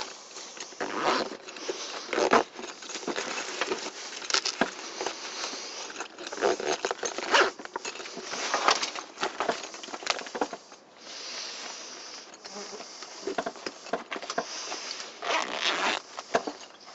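A 30-litre camouflage backpack being handled: its fabric rustles and scrapes in irregular bursts, and its zips are worked near the start.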